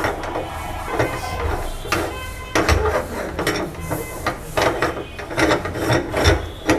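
Meat grinder crushing chocolate-filled snacks: irregular crunches and clicks, about one or two a second, over a rasping grind.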